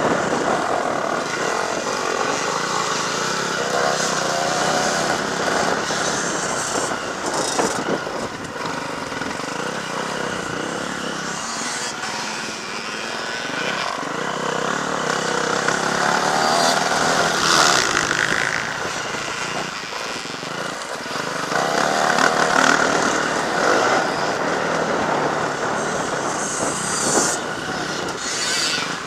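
Several motocross bikes racing around a dirt track, their engines revving up and down as they accelerate, shift and pass by.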